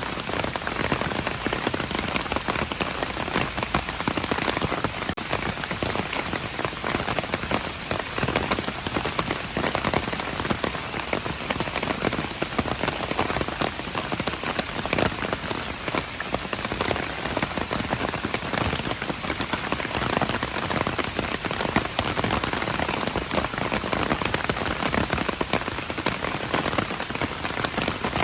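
Steady rain: a dense, even patter of drops with no let-up.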